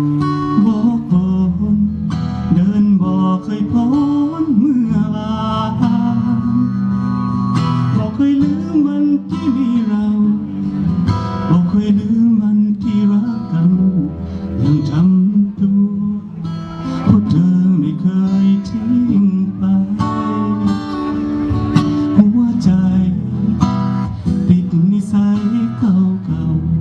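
Live music: a strummed acoustic guitar with a voice singing.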